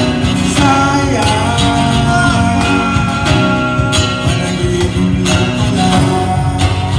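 A band playing a song live, led by strummed acoustic guitar, with percussion keeping the beat and a melody line over it.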